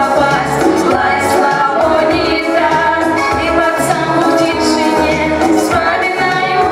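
Pop music with singing over a steady beat and bass line.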